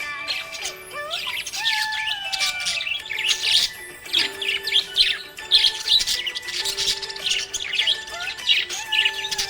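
Small pet parrots chirping and chattering in rapid, dense bursts, over background music with long held notes.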